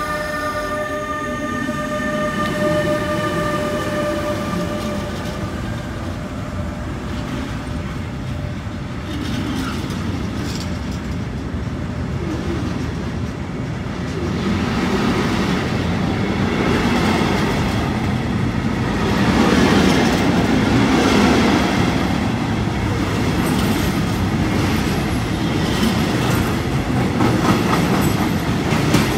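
An intermodal freight train rolling past at speed: a steady rumble of steel wheels on the rails, with clicking over rail joints. The rumble grows louder about halfway through. A set of steady tones from the passing electric locomotive fades out in the first second.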